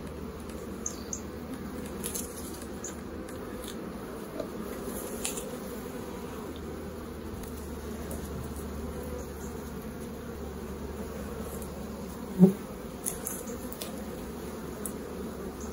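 Honeybee colony humming steadily from an open hive as a frame crowded with bees is lifted out. A few faint clicks and scrapes of the hive tool and frame, and one short sharp knock about twelve seconds in.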